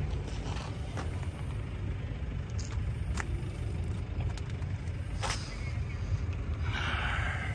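Low, steady engine rumble of a vehicle running, with a few faint clicks and a short hiss near the end.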